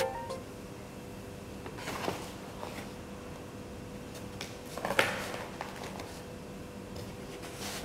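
Quiet handling noises on a tabletop: soft rustles and light knocks, the loudest a short knock about five seconds in, over a faint steady hum.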